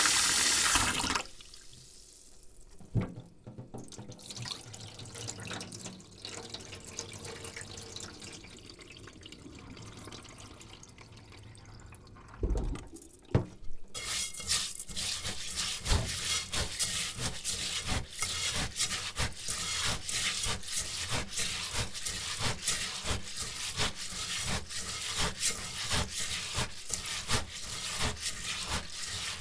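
Rice being washed by hand in a bowl: a tap runs and shuts off about a second in, water sloshes and drips, and then the grains are scrubbed in quick rhythmic rubbing strokes, about three a second, with a single knock just before the scrubbing begins.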